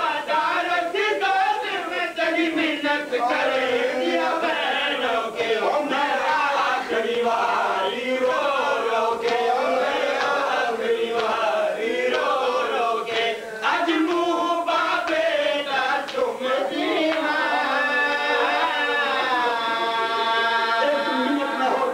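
A group of men chanting a mourning lament in unison into a microphone, with voices only. Near the end they hold one long note.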